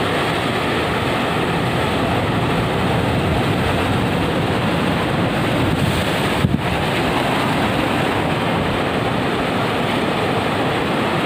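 Sea surf washing and breaking on the shore, mixed with wind rumbling on the microphone, as a steady rushing noise. About halfway through there is a brief click and a momentary dropout.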